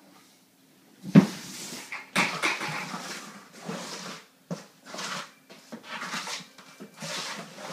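A trowel spreading flooring adhesive across an old vinyl floor, scraping in repeated strokes of about half a second to a second each. A single thump comes about a second in.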